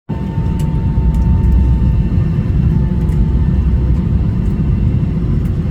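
Steady low rumble of cabin noise inside an Airbus A320, with a faint thin whine over it that fades about halfway through.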